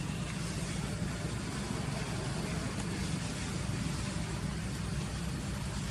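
Steady low rumble of outdoor background noise with no distinct calls or knocks.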